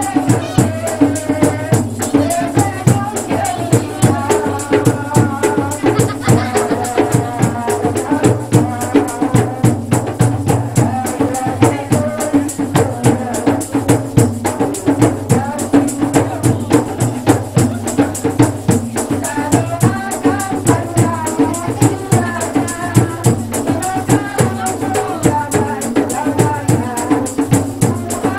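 A woman singing into a microphone through a loudspeaker, over a steady rhythmic backing of shaken and struck percussion.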